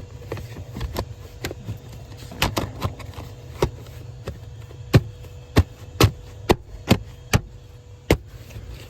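Plastic interior trim panel of an Infiniti G37 being pressed and knocked back into its clips: scattered sharp knocks and clicks, then a run of about six hard taps, roughly two a second, around the middle.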